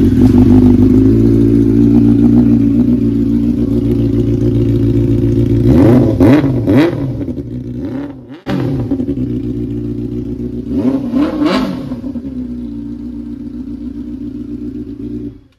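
Benelli 600i inline-four motorcycle engine running through an Austin Racing slip-on exhaust. It idles steadily and is revved twice, about six and eleven seconds in, the pitch rising and falling each time. The sound stops suddenly near the end.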